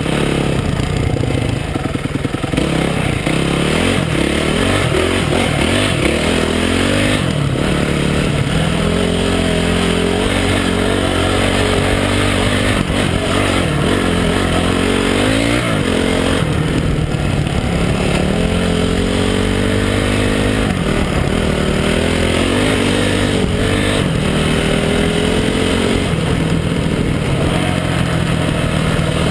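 Honda CRF250X dirt bike's single-cylinder four-stroke engine running under way on a trail, its pitch rising and falling again and again with the throttle and gear changes, with a sharp drop and climb about halfway through.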